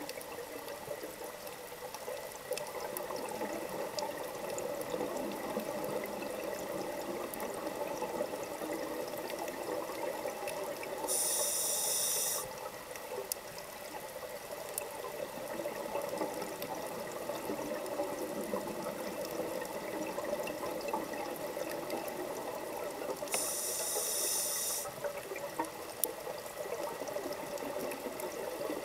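Underwater ambience heard through a camera housing: a steady muffled wash of water with faint crackling. Twice, about twelve seconds apart, a diver's scuba regulator hisses for about a second and a half with a breath.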